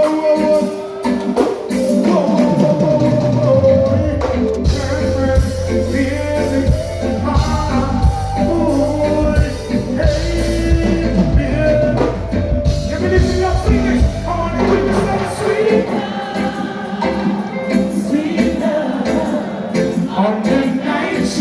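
Live band music with a deep bass line that comes in a few seconds in and drops out about fifteen seconds in.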